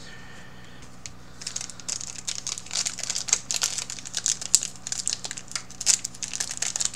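Foil wrapper of a Yu-Gi-Oh booster pack crinkling as it is handled and opened, a dense irregular crackle that starts about a second and a half in.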